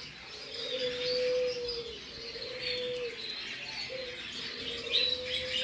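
Many caged birds chirping together, with a low steady cooing call held about a second at a time, repeated three or four times.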